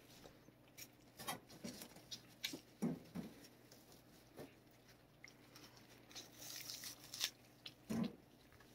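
A cat chewing a treat and licking up crumbs from a cage shelf: faint, irregular small clicks and smacks.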